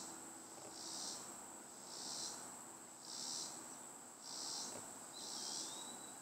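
Insect chorus in summer woods: a steady high shrill with a pulsing buzz that repeats a little under once a second.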